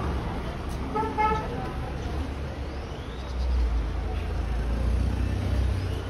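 A vehicle horn gives one short toot about a second in, over steady street-traffic rumble.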